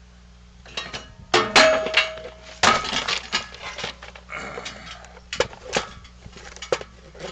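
Sharp metal clanks and knocks from steel parts and tools being handled. One strike about a second and a half in leaves a short ringing tone, and scattered knocks follow.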